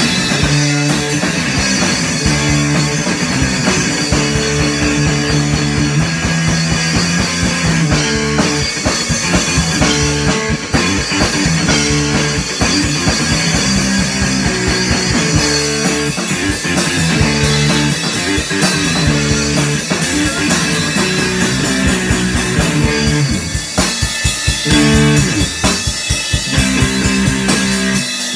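A guitar and a drum kit played live together in a loud rock jam, the guitar holding a repeating riff over steady drumming. In the last few seconds the playing breaks up into separate, spaced-out hits.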